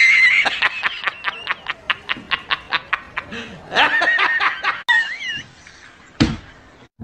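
Dubbed-in comedy laugh effect: a rapid, high-pitched snicker of about six short bursts a second, then a wavering high squeal.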